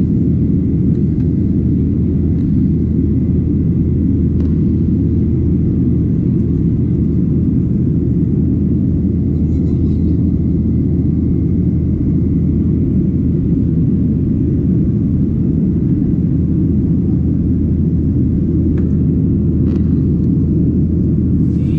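Jet airliner cabin noise in cruise: a steady low rumble of engines and rushing air heard from a window seat.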